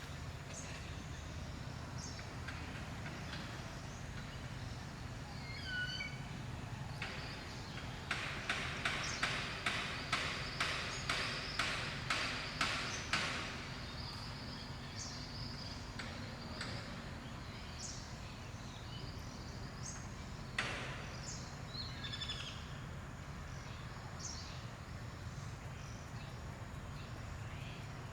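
Outdoor ambience with birds calling: a few short chirps, then a run of about a dozen sharp repeated notes, two or three a second, lasting about five seconds. A single sharp click comes later.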